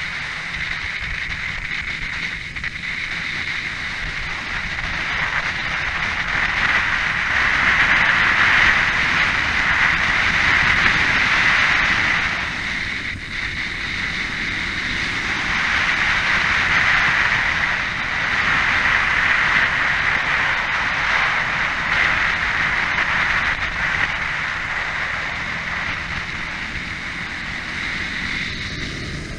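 Kawasaki Ninja parallel-twin sportbike at speed, heard from an onboard camera: heavy wind rush over the microphone with the engine running underneath. It swells twice as the bike speeds up and eases for a moment about a third of the way through.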